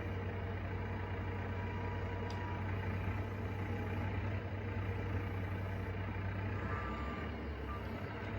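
Telehandler's diesel engine running with a steady low drone.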